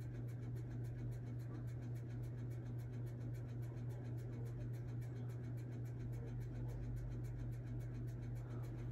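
Steady low background hum over a faint even hiss.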